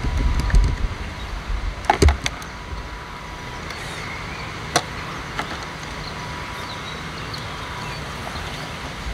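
Sharp plastic clicks and knocks from hands working on a Nanotec carp bait boat: a quick cluster about two seconds in, then a single click or two near the middle. Wind rumbles on the microphone during the first seconds.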